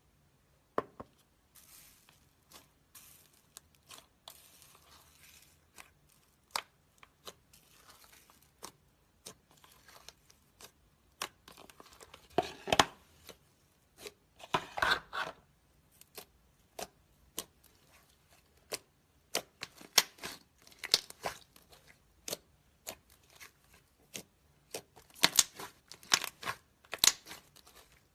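Slime being squeezed and worked by hand, giving irregular sharp clicks and crackling pops, with denser, louder runs about halfway through and near the end.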